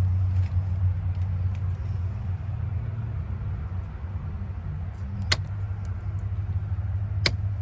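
Steady low background rumble, with two sharp snips about five and seven seconds in: wire cutters cutting the wire nuts off electrical wires.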